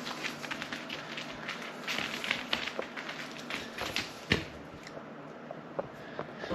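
Quick, irregular pattering and clicking of running footsteps on a hard floor during a game of chase, with one louder knock a little past four seconds in.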